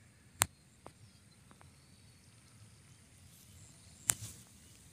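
Faint outdoor quiet broken by two sharp clicks, about half a second in and again about four seconds in, with a few fainter ticks between them.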